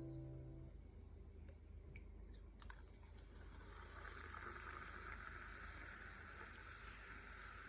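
Faint sound of liquid: a few soft clicks, then from about three seconds in a quiet steady hiss like fizzing or flowing liquid. The last of the background music fades out at the very start.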